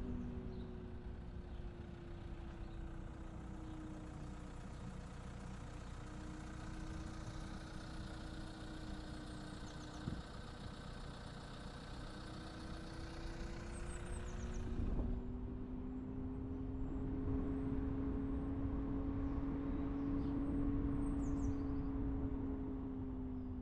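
Car engine and road noise while driving: the engine's hum drops in pitch over the first few seconds as the car slows, then rises again about two-thirds of the way through as it speeds up, over a steady rumble of tyres.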